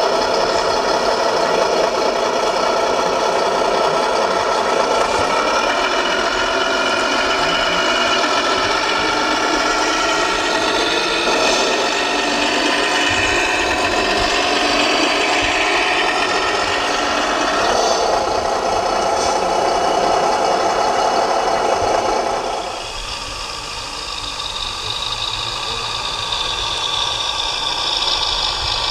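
Electronic diesel-engine sound from a radio-controlled scale truck's sound module, played through the model's small speaker and running steadily. About two-thirds of the way through, it changes to a quieter, thinner engine sound.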